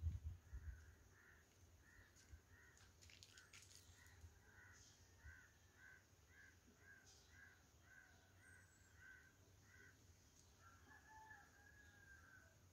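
Faint bird calls: a quick, even series of short notes, about two or three a second, stopping about ten seconds in, then one longer drawn-out call near the end. A few low handling thumps at the very start.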